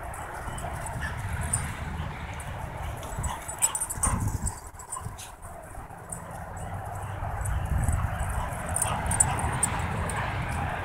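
Two pit bulls playing chase on grass: the dogs' own sounds as they play, with their paws running over the ground.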